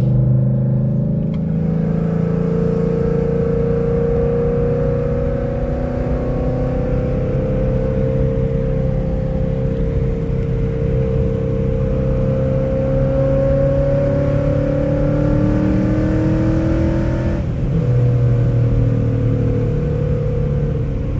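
2017 Ford Mustang GT's 5.0 L V8, fitted with catless Kooks long-tube headers and an aftermarket exhaust, heard from inside the cabin pulling under load with its pitch slowly rising. About 17 seconds in the sound breaks off briefly and comes back lower in pitch, an upshift of the manual gearbox, then it pulls again.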